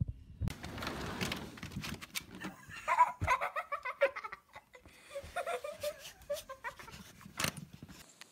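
A person laughing in quick, short bursts, with rustling and a sharp knock about seven and a half seconds in.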